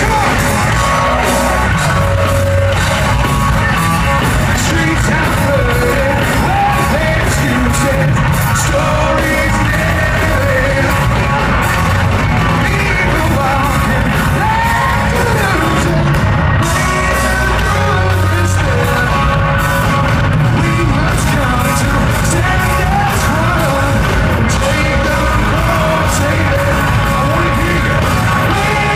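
Hard rock band playing live at full concert volume: electric guitars, drums and a lead singer, echoing around a large arena hall.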